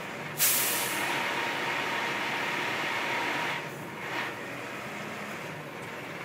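Knuckle-boom crane truck running steadily as it hoists a load. About half a second in a sudden loud hiss starts and settles into a steady rush that stops about three and a half seconds in.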